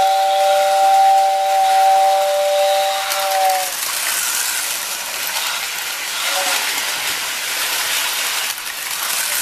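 Lionel 6466WX whistle tender's electric whistle blowing one long two-tone blast for about three and a half seconds, dipping in pitch as it cuts off. Then the 1947 Lionel 675 steam locomotive and its train keep running along the track with a steady rolling noise, and there is a faint short whistle toot about six seconds in.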